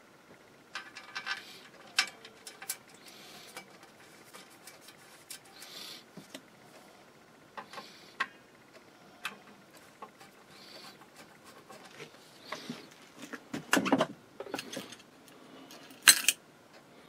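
Light metal clicks, taps and brief scrapes as small screws are started loosely into the inverter's metal cover plate and heat sink, with a louder clatter about three seconds before the end and a sharp click just after.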